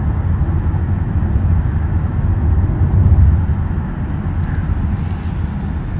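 Steady low road and engine rumble inside a moving car's cabin, picked up by a phone's microphone, with a couple of faint clicks about four and a half and five seconds in.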